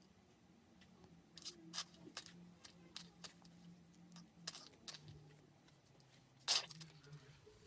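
Glitter slime being squeezed and pressed by hand, giving irregular sharp clicks and pops, one louder pop about six and a half seconds in, over a faint low hum.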